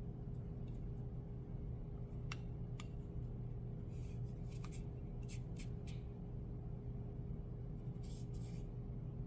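Faint clicks and short light scrapes of a Zippo lighter being handled and turned over in the hand, over a steady low hum.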